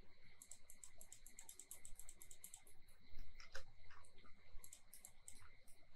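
Faint computer mouse clicks: a quick run of several clicks a second, then scattered single clicks. This is the clicking that places points on a curve in 3D modelling software.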